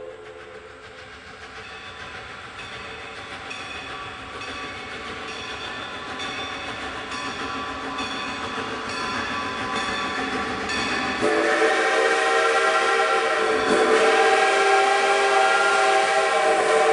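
A train approaching, a regular beat of knocks growing slowly louder. About eleven seconds in, its whistle starts, several tones sounding together, and it is held to the end.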